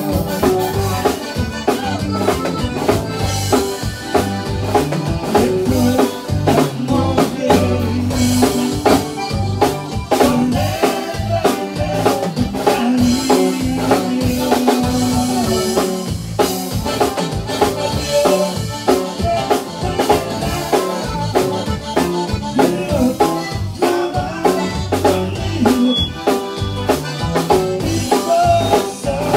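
Tejano conjunto band playing live: a drum kit keeps a steady beat under bass and button accordion.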